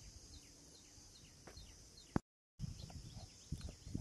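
Faint rural ambience: a bird repeating a short falling chirp about twice a second over a steady high hiss, with a faint low rumble. A click and a brief dropout to silence come about halfway through.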